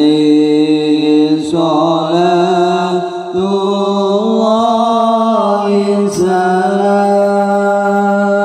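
Sholawat, Islamic devotional chanting, sung in long drawn-out vocal notes that glide between pitches, with brief breaks between phrases. It is played loud through a large sound system of loudspeaker boxes.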